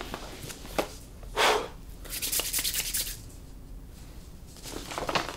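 A sheet of paper rustling and crinkling as it is handled and unfolded, in a few short bursts with a longer one in the middle.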